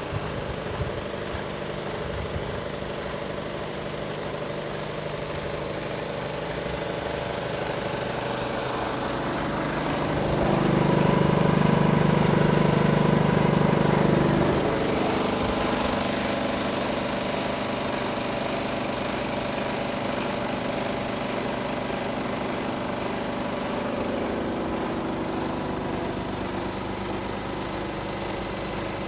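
Mercedes-Benz Actros 1843 tractor unit's diesel engine idling steadily. It grows louder for about four seconds midway, with no change in pitch, then settles back.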